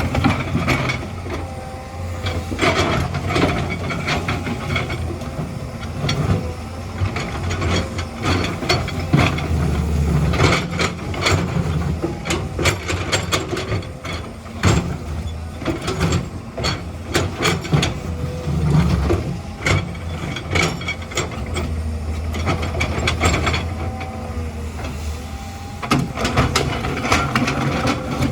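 Excavator at work: its diesel engine runs steadily, with frequent sharp clanks and knocks of metal and rock.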